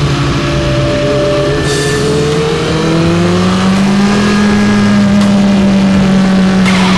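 Onboard sound of a Kawasaki ZX-9R's inline-four engine under way in second gear, its note climbing gradually through the middle and easing off near the end, over wind rush.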